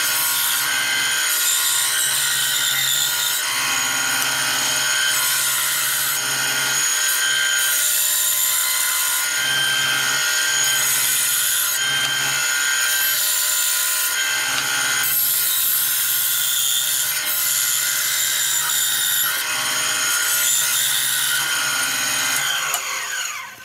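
Benchtop band saw running and cutting a curved outline through a thick oak board, its cutting noise swelling and easing as the wood is fed and turned against the blade. Near the end the saw is switched off and the motor winds down, its whine falling in pitch.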